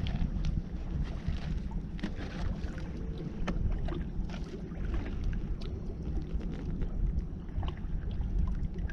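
Steady low wind rumble on the microphone aboard a small fishing boat, with scattered light clicks and rustles of handling.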